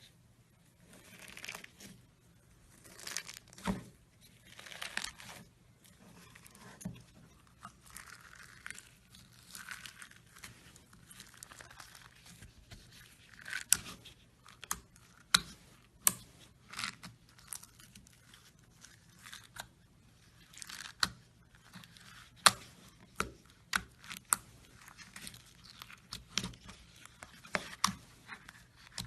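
Slime being stretched, squeezed and pressed by hand. It gives irregular crackling and sharp little pops, which come thicker and louder in the second half.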